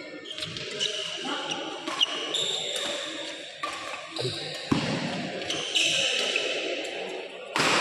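Badminton doubles rally: rackets striking the shuttlecock in sharp cracks, with sneakers squeaking on the synthetic court mat. The sound gets suddenly louder and noisier near the end.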